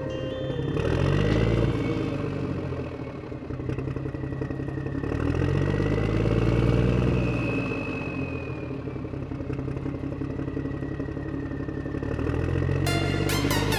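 Truck engine sound rising and easing off in slow swells, about three times over, with a thin steady high whine above it. Electronic music starts near the end.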